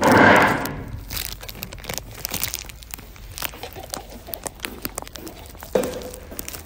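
Rustling, crinkling handling noise of a handheld phone's microphone as it is moved about, loudest in the first second, then scattered clicks and crackles.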